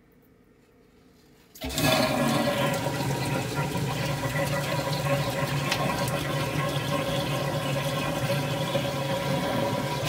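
Water-powered backup sump pump running on mains water pressure: a sudden onset about two seconds in as its float is lifted, then a steady loud rush of water with a hum through it, cutting off abruptly at the end. The backup pump is working properly.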